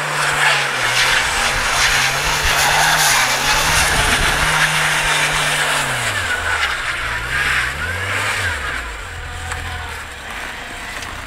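Volkswagen Golf engine held at high revs while its wheels spin on snow, with a steady hissing whirr from the tyres. About six seconds in the revs drop, rise once more briefly, then settle low and steady.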